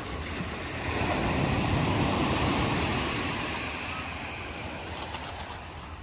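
Sea waves breaking and washing up a shingle beach: a steady rushing surge that swells about a second in and slowly eases off.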